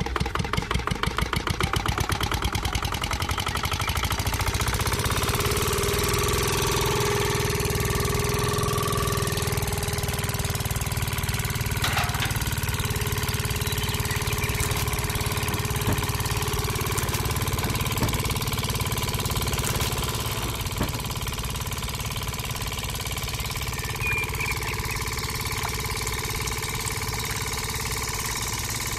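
Miniature model single-cylinder diesel engine starting and running, belt-driving a small mill. It beats quickly and evenly at first, then settles into a steady run.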